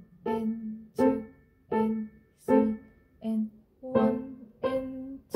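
Steinway & Sons grand piano played with both hands at a slow, even pulse: about seven detached notes or chords, each struck and dying away before the next.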